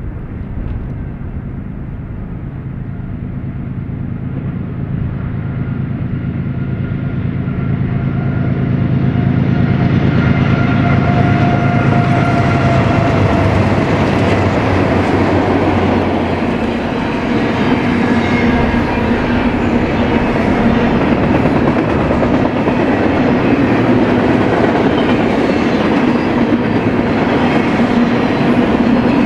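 BNSF freight train with diesel locomotives approaching and passing: a low engine drone grows louder over the first ten seconds or so, then gives way to a steady rumble and clatter of wheels on rail as the cars roll by.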